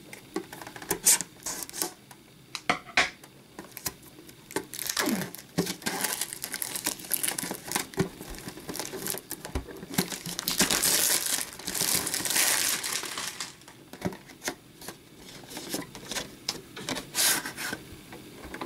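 Plastic shrink wrap being torn and crinkled off a metal trading-card tin, with many sharp clicks and taps as the tin is handled; the crinkling is densest and loudest a little past the middle.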